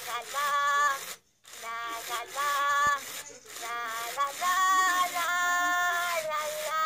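Furby toy chattering and singing in short phrases in its high-pitched electronic voice, with the rubbing whir of its internal motor as its eyes and mouth move. The voice drops out briefly about a second in.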